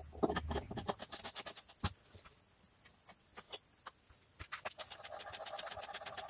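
Scattered light clicks and knocks as the oil filter housing cap is handled and fitted. From about five seconds in, a ratchet wrench clicks quickly as it turns the oil filter housing cap.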